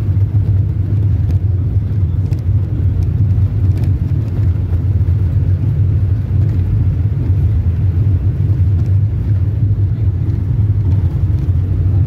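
Steady low rumble of a moving road vehicle's engine and road noise, heard from inside the vehicle.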